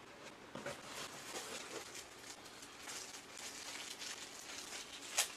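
Faint rustling and crinkling of small plastic-wrapped accessory packs being handled, with a few light ticks and a sharper click near the end.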